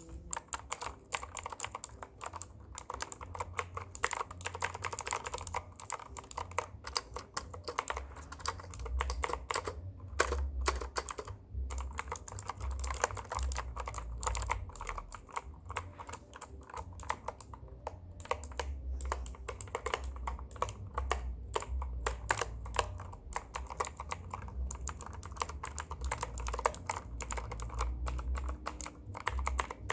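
Computer keyboard being typed on continuously: a dense, irregular run of key clicks with a few short pauses, over a low background rumble.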